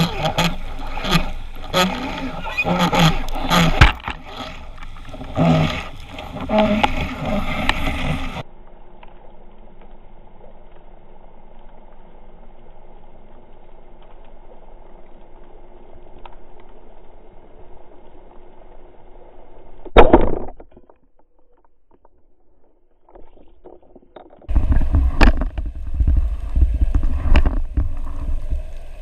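Spearfishing dive heard through an underwater camera: a busy stretch of water noise and knocks for the first eight seconds, then a quiet steady underwater hum broken by one sharp speargun shot about twenty seconds in. Loud churning water noise takes over near the end as the diver holds up a speared grouper.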